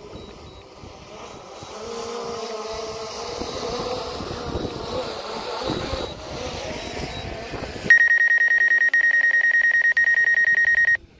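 Drone controller's landing warning alarm: a loud, steady high-pitched beep with a rapid flutter, sounding for about three seconds near the end and then cutting off. It signals that the ground under the descending drone is unsuitable for landing. Before it comes the wavering hum of the drone's propellers, mixed with wind, as the drone comes down close by.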